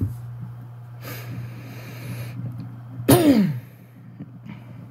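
A man breathes in audibly, then makes one short, loud, non-speech vocal burst a little past the middle, its pitch falling quickly. Under it runs a steady low hum.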